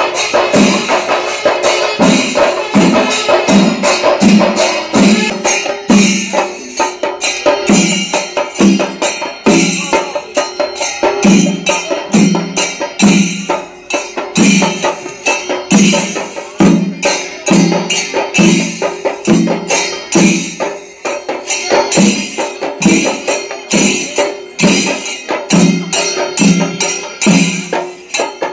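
Percussion music: fast drumming with jingling, clashing metal percussion above it, in a steady, unbroken beat, with a pitched low stroke about twice a second.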